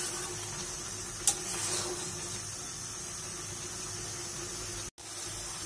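Sweet potato leaf and dried fish curry simmering in a wok, a steady sizzling hiss from the bubbling sauce, with one sharp click about a second in. The sound breaks off for an instant near the end.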